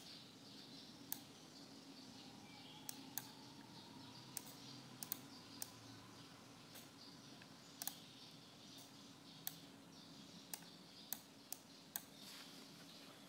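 Computer mouse clicking: about fifteen short, sharp single clicks at irregular intervals over a faint steady background hum.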